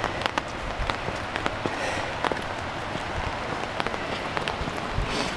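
Light rain falling, with many separate drops ticking irregularly close by and a low thump near the end.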